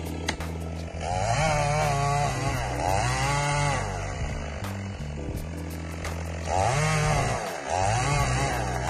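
Chainsaw engine running at low speed, then revved up about a second in and working, its pitch wavering up and down as the load on it changes; it drops briefly a little after seven seconds and picks up again.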